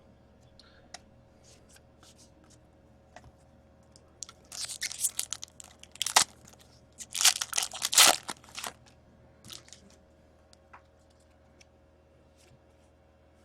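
A foil trading-card pack wrapper being torn open and crinkled, in several short bursts of crackling between about four and nine seconds in. Small clicks of cards being handled come before and after.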